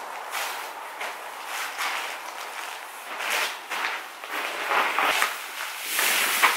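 Whitetail deer hide being pulled and torn from the hanging carcass during skinning: a run of irregular rasping rips and rustles, louder in the second half.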